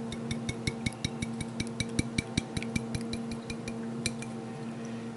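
Rapid, even clinking, about four or five a second, as a jar of Alfredo sauce is shaken and worked empty over a casserole dish. It stops about four seconds in, over a steady low hum.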